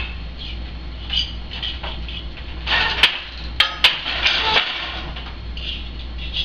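Wooden countermarch loom being worked: the beater knocking the weft into place and the loom's wooden parts clacking, with a few sharp clacks about three to four seconds in.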